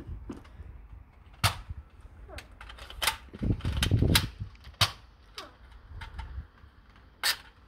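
Toy Nerf foam-dart blaster being loaded, primed and fired: a handful of sharp plastic clicks and snaps spread over several seconds.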